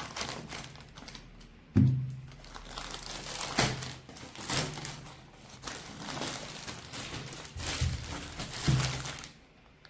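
Plastic shrink-wrap being peeled off a boxed keyboard and crumpled, irregular crinkling and rustling with a few dull thumps of the box being handled.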